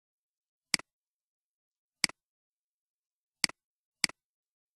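Computer mouse button clicking four times, each a quick two-part press-and-release click; the last two come close together.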